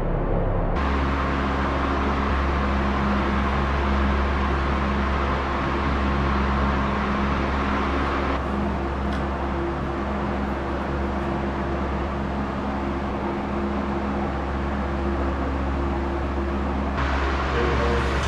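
Steady mechanical hum of a running machine, a low drone with a few constant tones and a hiss over it.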